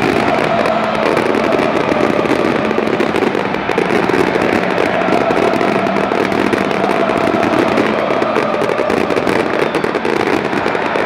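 Dense, continuous crackling of firecrackers going off in the stands, over the steady noise of a packed stadium crowd.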